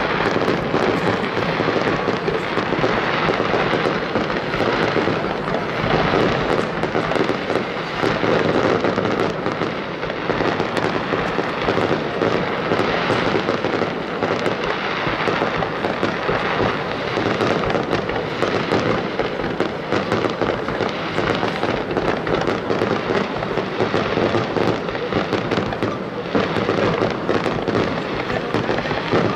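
Aerial firework shells launching and bursting in a continuous barrage of rapid, overlapping bangs with no pauses.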